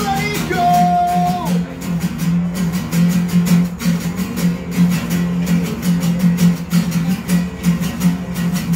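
Two acoustic guitars played together in steady, rhythmic strumming.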